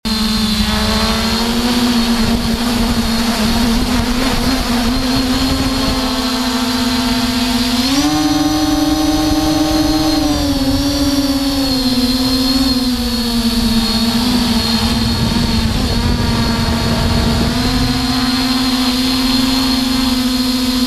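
Quadcopter drone's propellers humming steadily in flight. The pitch steps up about eight seconds in, eases back down over the next few seconds, and rises again near the end.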